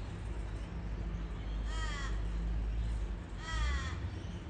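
A crow calling twice, two short caws that fall in pitch, less than two seconds apart, over a steady low rumble.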